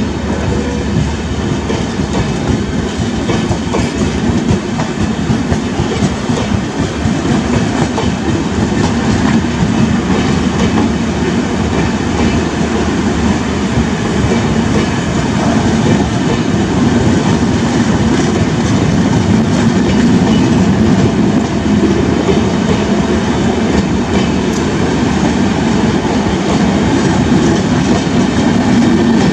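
A passing Indian Railways express made up of LHB coaches, its wheels running steadily over the rails in a continuous noise that grows slightly louder as the coaches go by.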